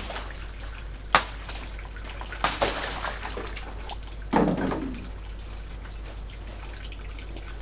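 Water running and splashing in a small bathroom, broken by four sharp knocks: one at the start, a loud one about a second in, and two more with short splashy tails near two and a half and four and a half seconds in.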